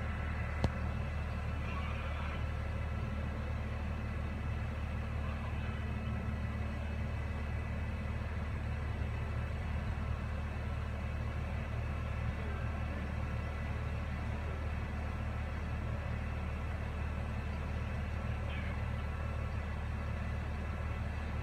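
Crane engine running steadily at a low, even hum while it holds the windmill cap on its slings, with a single sharp click under a second in.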